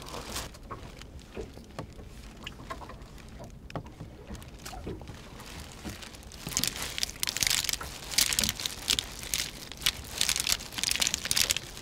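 Plastic glove crinkling and wet food squelching as a gloved hand mixes raw hairtail slices with sliced vegetables and chilli-paste sauce in a foil tray. It starts about six and a half seconds in, after a few light clicks and taps.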